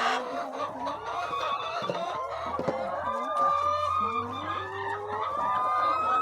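A flock of chickens clucking and calling over one another, many overlapping calls.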